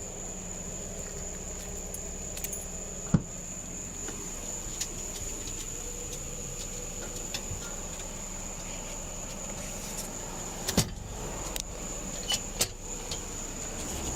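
Steady background hum with a constant high-pitched whine, broken by a few sharp clicks and jingles: the loudest about three seconds in, then several more close together near the end.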